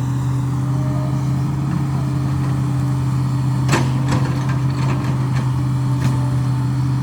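Hitachi excavator's diesel engine running steadily. About halfway through come a few sharp cracks, the first the loudest.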